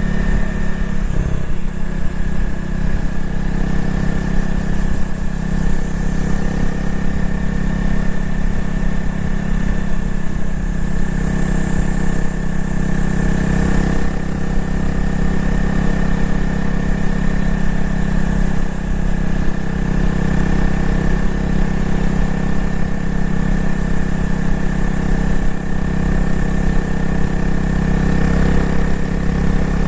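Honda CRF250L's single-cylinder engine and exhaust running at a steady, even pitch with little change in throttle.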